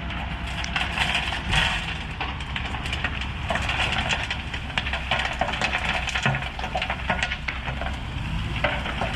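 A diesel engine running with a steady low rumble under dense crackling and crunching, full of many small sharp clicks.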